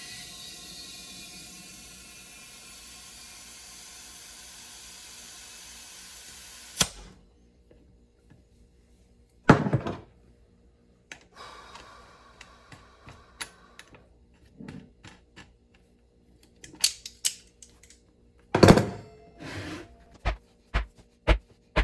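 Compressed air hissing steadily at the inner tube's valve stem of a golf cart tire for about seven seconds, cutting off with a click. Then the half-inflated tire is bounced on the ground, thudding several times and in quick succession near the end, to make the folded tube unfold and sit evenly.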